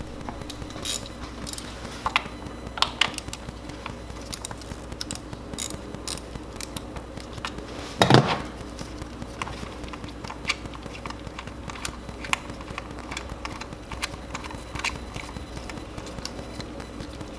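Scattered small clicks and clinks of hand tools and parts being worked on in a car's engine bay, with one louder knock about eight seconds in.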